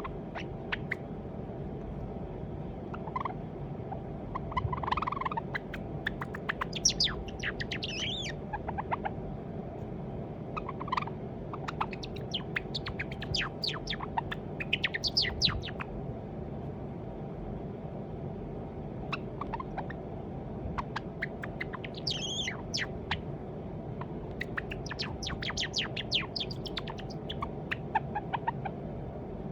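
White Java sparrow practising its song: several phrases of rapid clicking notes and high chirps, which the owner takes to be a young male's song practice. A steady low hum runs underneath.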